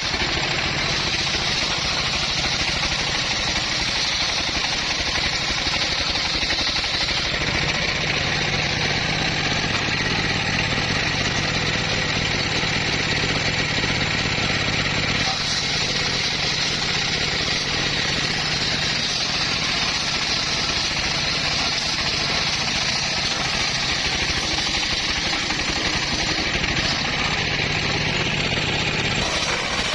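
Homemade bandsaw running steadily while sawing teak: a constant motor drone under a hissing sawing noise. The sound shifts slightly about seven seconds in and again about halfway through.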